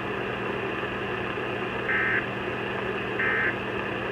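Two short bursts of EAS end-of-message data tones, the warbling code that closes an emergency alert, about a second apart. Under them runs the steady hum and hiss of the radio receiver.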